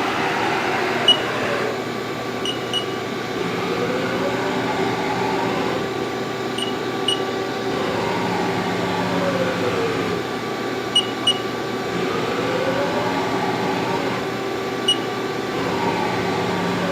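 Haas ST-30 CNC lathe running, its spindle drive whine gliding up as the spindle speeds up and back down as it slows, twice, over a steady machine hum. Short high beeps come several times.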